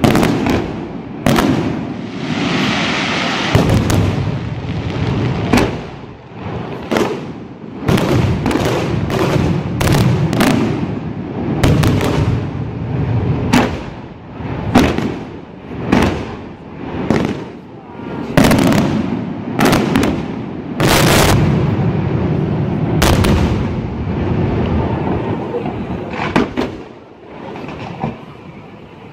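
Aerial fireworks display: a rapid, continuous run of shell bursts, dozens of sharp bangs with rolling echoes over a low rumble, and a stretch of hiss about two to four seconds in.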